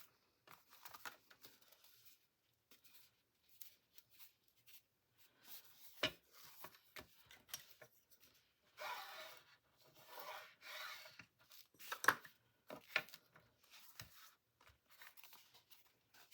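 Scissors cutting fabric: a few sharp snips and short swishing cuts, with light rustling as the fabric and paper pages are handled.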